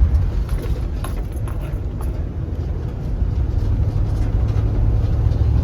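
Steady low road and engine rumble inside a moving work truck's cab.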